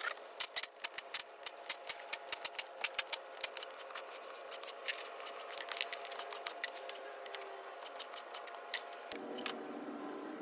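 Rapid, irregular metallic clicking as a cordless drill with a socket backs out the bolts of a 4L80E transmission's oil pan. The clicks come thick and fast for the first few seconds, then thin out.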